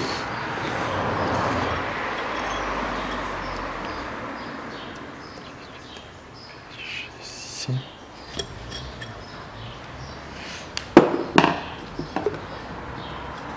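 A rushing noise swells and fades over the first few seconds. Then metal steering parts clink and knock a few times, the loudest a pair of knocks near the end.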